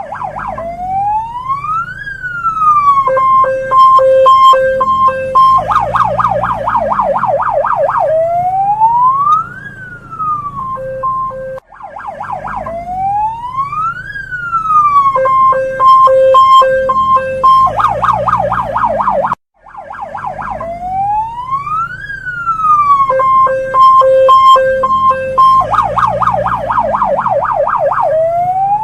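Hong Kong police car siren cycling through its modes: a wail that rises and falls, then a run of short, evenly spaced beeps, then a fast warbling yelp. The cycle lasts about eight seconds and plays three times, breaking off briefly between cycles.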